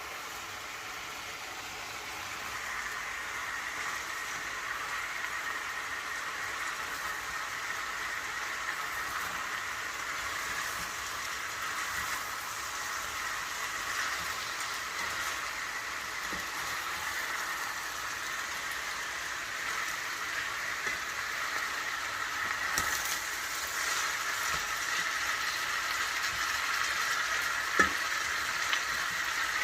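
Food cooking in a pot on the stove: a steady sizzling hiss that slowly grows louder, with one sharp click near the end.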